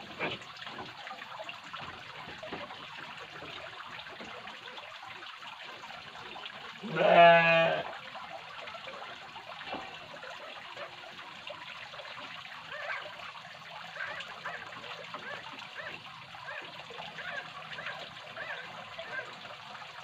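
Steady trickle of water at a fishpond, with one loud animal call about a second long, about seven seconds in, and faint chirps repeating roughly once a second in the second half.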